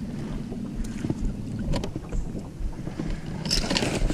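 Wind rumbling on the microphone over water lapping against a small plastic boat, with a few light knocks. Near the end comes a louder stretch of splashing as a big bass in a landing net is drawn in beside the boat.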